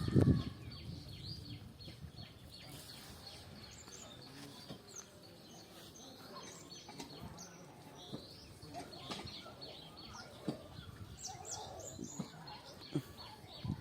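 Small birds chirping and tweeting in quick short calls, on and off throughout, over a quiet outdoor background, with a brief loud low thump right at the start.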